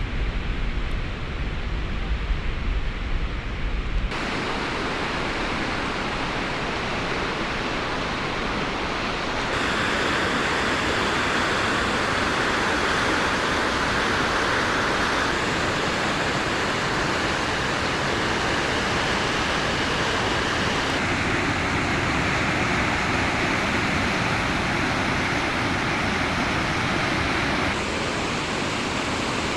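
Waterfall rushing: a loud, steady hiss of falling water whose tone shifts abruptly every few seconds. A deep low rumble is mixed in for the first few seconds.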